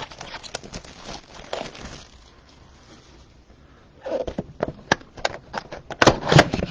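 Crinkling and clicking of trading-card box packaging being handled and opened, with plastic wrap and cardboard, in bursts. There is a quiet gap in the middle, and the handling grows louder near the end.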